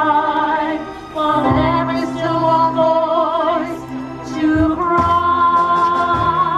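Several singers singing a 1940s wartime song together through microphones and a PA, over musical accompaniment with a steady bass line and long held notes.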